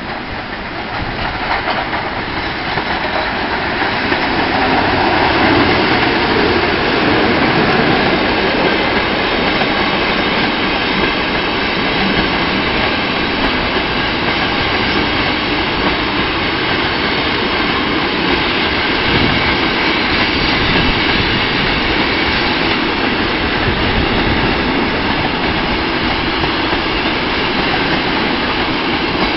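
Train rolling past close by, wheels clicking over the rail joints; it grows louder over the first few seconds, then runs on steadily.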